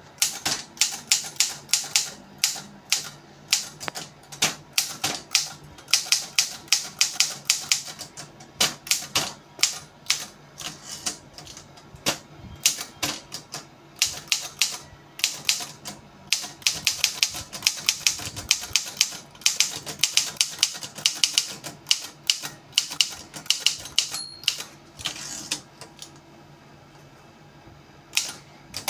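Diplomat Super typewriter being typed on: quick runs of sharp key strikes with short pauses between them. The typing stops for a couple of seconds near the end.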